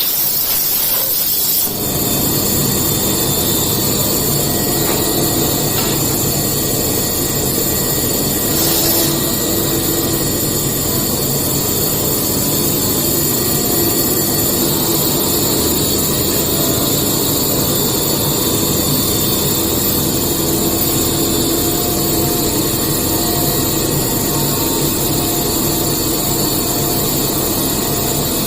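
CNC machine running and cutting metal, a steady loud machine noise with whining tones. The sound shifts abruptly about two seconds in.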